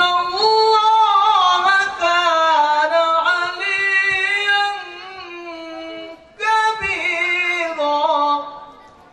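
A man's voice reciting the Qur'an in a melodic chanting style into a microphone, holding long, ornamented notes. There is a short breath break about six seconds in, then a final phrase that trails off near the end.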